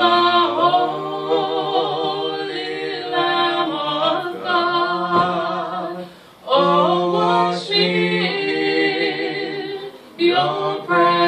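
A man and a woman singing a slow hymn a cappella in harmony, holding long notes, with short breaks for breath about six seconds in and again near ten seconds.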